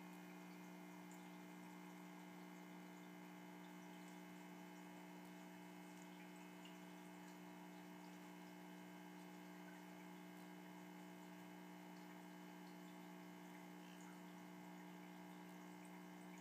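Near silence: a faint, steady electrical hum made of several fixed tones, unchanging throughout.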